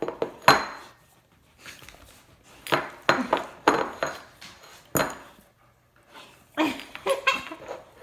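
A dog licking out an emptied ceramic bowl on a table, its tongue and muzzle knocking the bowl and setting off irregular clinks and scrapes of the dish.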